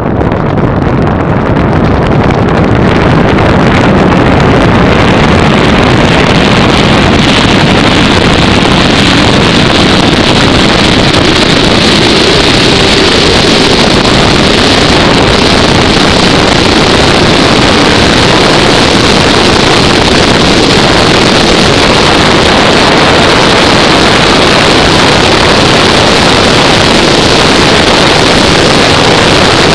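Rush of wind over the microphone and tyre roar from an engineless gravity car coasting downhill. It builds over the first few seconds as the car gathers speed, then holds as a steady loud rush.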